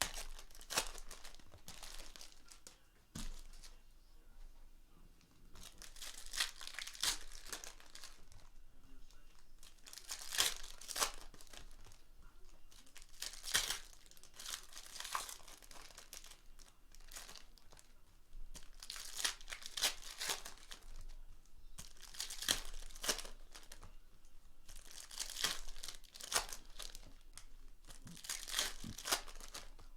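2018-19 Prizm basketball retail card packs being torn open and their wrappers crinkled, in repeated bursts a few seconds apart.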